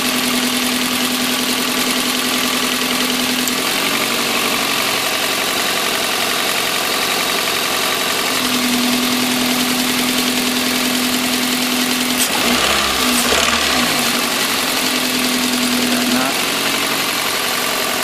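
Toyota 1ZZ-FE 1.8-litre four-cylinder engine idling with a knock from worn connecting rod bearings. A steady tone in its note drops away and returns a few times, and there is a click with some brief handling noise about two-thirds through.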